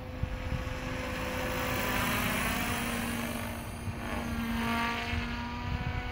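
Electric 700-size RC helicopter (Compass 7HV) flying overhead: a steady motor and rotor whine with a whoosh of the blades that swells and fades as it passes, loudest about two seconds in and again near five seconds.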